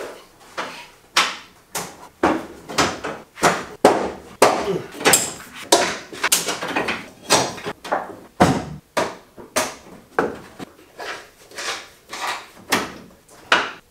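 A steady run of sharp knocks and clicks, about two a second, from hand work on the underside of a car chassis, where cables and lines are being fitted and clipped into place.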